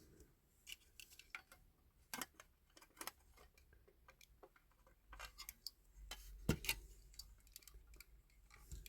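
Scattered light clicks and taps of small hand tools against a 1/18 scale diecast model car during strip-down, irregular and sparse, the loudest about six and a half seconds in, with a faint low rumble of handling over the last few seconds.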